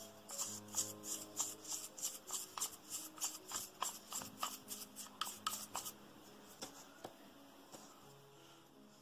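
Toothbrush bristles scrubbing back and forth inside a Comandante C40 hand coffee grinder's body and burr, several quick strokes a second, stopping about six seconds in.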